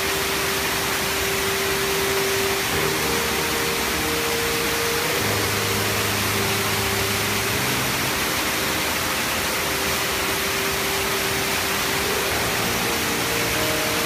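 Waterfall rushing: a steady, even wash of water cascading over limestone terraces.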